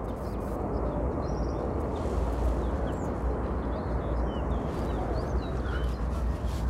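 Wind buffeting the phone's microphone with a steady low rumble, while small birds chirp in many short, quick calls.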